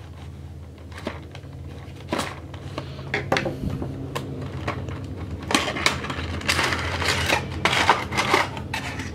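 A cardboard window box for an action figure being handled and opened, with scattered taps and clicks of card and plastic. From about five and a half seconds in there is a denser run of rustling and crinkling as the clear plastic tray is slid out. A faint steady low hum sits underneath.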